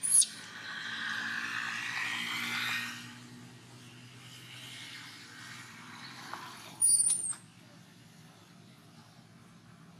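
A baby capuchin monkey giving two short, very high-pitched squeaks, one at the very start and one about seven seconds in, with a hissing noise over the first three seconds.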